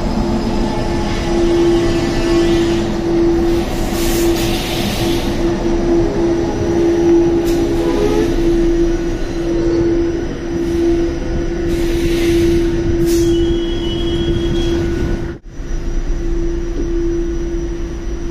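NFTA Metro light rail car arriving at an underground platform and stopping. A falling whine in the first couple of seconds as it slows, then a steady hum from the standing car, with two short hisses about four and twelve seconds in.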